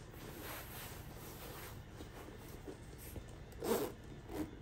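Metal zipper on a leather laptop sleeve being pulled open: a short zip about three and a half seconds in, then a second, shorter one just before the end.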